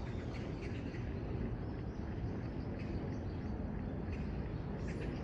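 Steady low rumble of trackside city background noise, with a few faint short bird chirps scattered through it.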